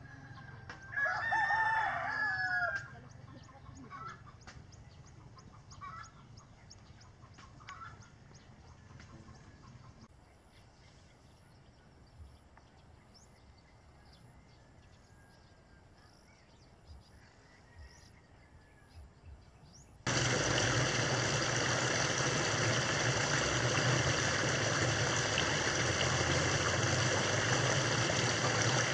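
A rooster crows once, loudly, about a second in, followed by faint scattered ticks. About twenty seconds in, a steady rush of running water starts abruptly and becomes the loudest sound.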